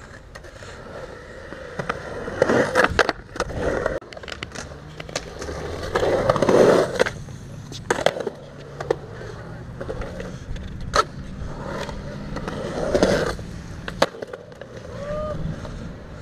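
Skateboard wheels rolling on concrete, swelling louder several times as the rider carves through the transitions, with sharp clacks scattered throughout.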